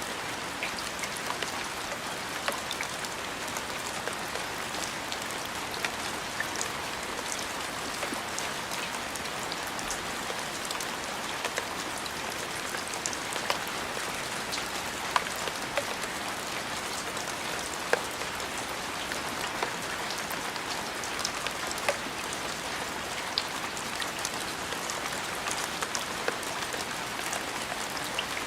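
Steady rain falling: an even hiss with scattered sharp drop hits.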